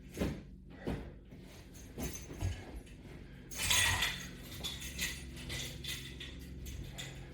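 A few soft knocks and clinks, then a short rushing sound about three and a half seconds in, over a low hum. Likely exercise straps and bar hardware being handled as a set of sit-ups begins.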